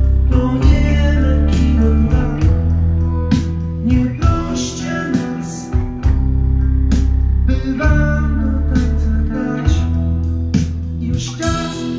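Recorded music with guitar, a deep bass line and drum hits, playing through Optonica CP-5000H loudspeakers.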